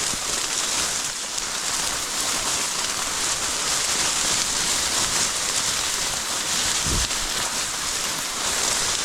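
Steady, dense rustling of dry cattails and grass brushing past as a hunter pushes through the cover, with a brief low thump about seven seconds in.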